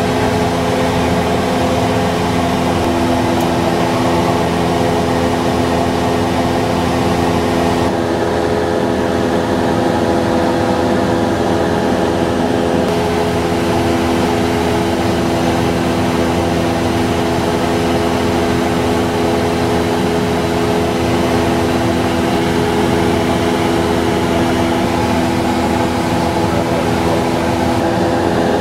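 Cessna 172N Skyhawk II's four-cylinder Lycoming piston engine and propeller running steadily in cruise flight, heard from inside the cabin as a constant drone with a few steady tones.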